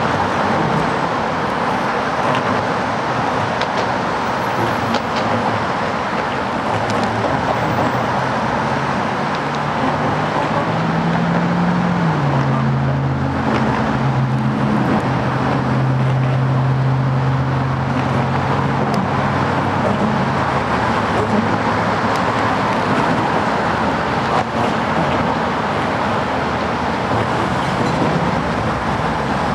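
Steady roar of road traffic. A low engine hum comes in about ten seconds in, drops in pitch a couple of seconds later and fades out around twenty seconds in.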